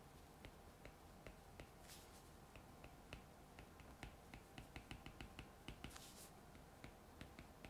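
Faint clicks and light scratching of a stylus on a tablet screen during handwriting. The clicks come in quick runs, thickest around the middle, with a couple of brief scratchy strokes.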